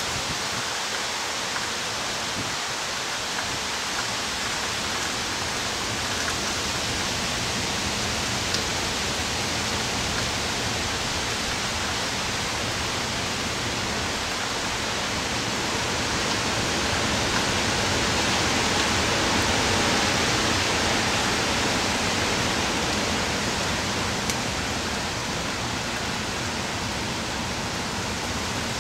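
Steady rush of heavy hurricane rain and wind, swelling louder for a few seconds past the middle.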